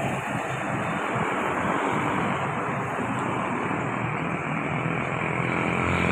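Steady road traffic noise, with a heavy vehicle's engine running under a wide hiss of wind and tyres.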